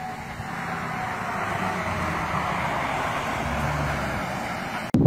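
A truck towing an empty flatbed trailer passes on the road, its tyre and engine noise building to a peak. A civil-defence siren's steady tone fades out in the first second.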